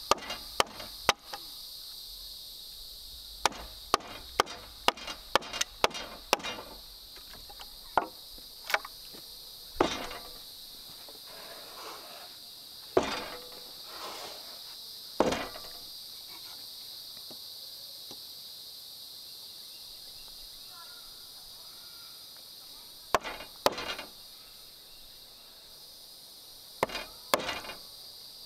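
A hand tool striking wood in irregular bursts of sharp blows: a quick run of about eight a few seconds in, single blows spaced through the middle, and a few more near the end. A steady high-pitched insect buzz runs underneath.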